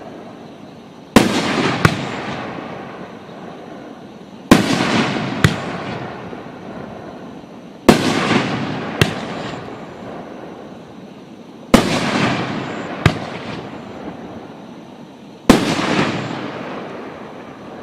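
Nishiki Crown Kamuro 9-shot fireworks cake firing: five loud bangs about every three to four seconds, most followed within a second by a smaller crack, each trailing off in a long fading crackle and echo.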